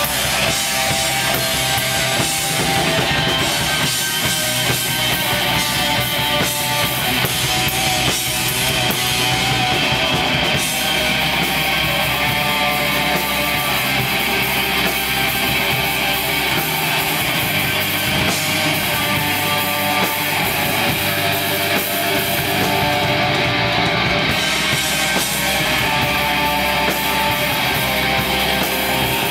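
Black metal band playing live: guitars and drums in a dense, steady wall of sound at an even loudness throughout.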